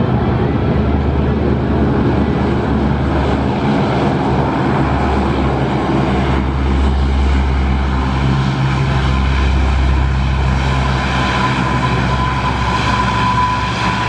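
The Aero Spacelines Super Guppy's four turboprop engines, a steady low drone as it flies its approach to land. A steady high turbine whine comes in about two-thirds of the way through.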